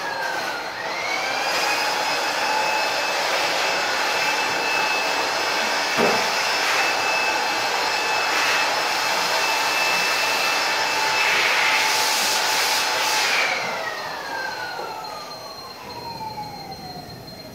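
An electric motor running with a steady high whine. It picks up speed with a rising pitch in the first second or so, then winds down with a falling pitch from about thirteen seconds in. A single knock about six seconds in.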